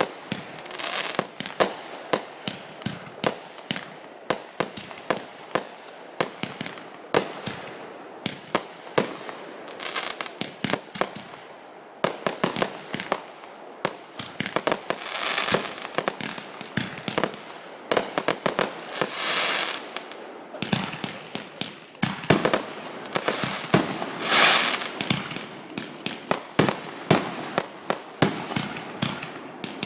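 Consumer fireworks going off in a rapid, uneven string of sharp bangs and pops, with several bursts of crackling hiss in between.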